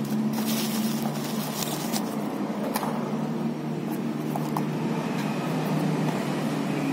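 A steady low mechanical hum runs throughout, with a few faint light taps from small cardboard SSD boxes being handled.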